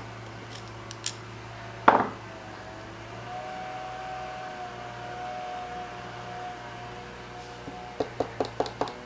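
Tools and small parts being handled during bench work on a leaf blower's fuel tank: one sharp knock about two seconds in and a quick run of about six clicks near the end, over a faint steady hum.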